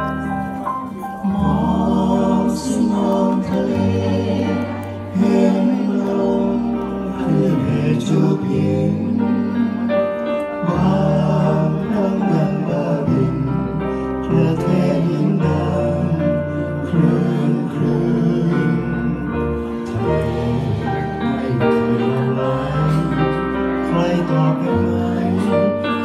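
Small live band playing a song: electric bass holding long low notes under keyboard chords and electric guitar, with a voice singing the melody.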